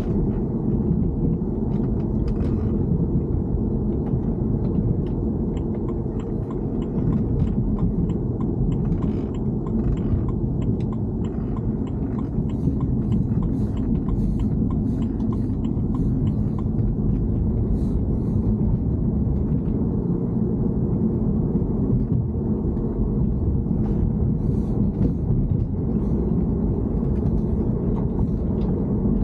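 Steady low rumble of a BMW E90 3 Series car, with faint scattered clicks and ticks coming and going in small clusters. The car is being recorded for an abnormal noise.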